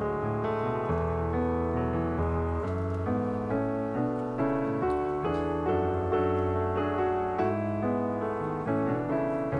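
Background piano music: a steady run of sustained melody notes over low bass notes.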